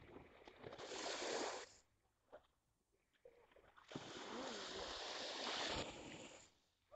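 Surf washing on a beach: two swells of rushing noise, the second longer.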